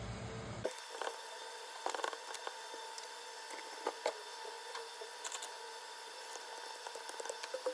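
Sparse small clicks and short scrapes of hand work on an LCD panel as its old front polarizer film is taken off the glass, over a faint steady whine. A low background hum drops away just under a second in.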